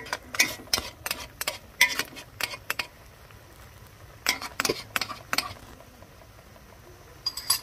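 Cooking utensil clinking and scraping against a pot while crabs are stirred in it: irregular sharp clinks in two clusters, through the first three seconds and again about four to five and a half seconds in.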